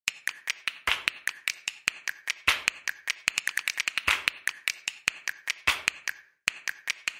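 A fast, regular run of sharp clicks and taps, several a second, with a stronger snap about every second and a half and a brief pause near the end: a percussive intro beat.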